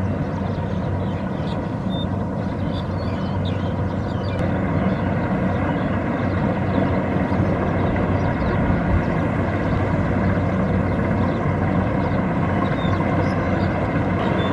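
Kubota DC-70 Plus rice combine harvester's diesel engine running steadily under harvesting load, getting a little louder about four and a half seconds in, with faint short high chirps above it.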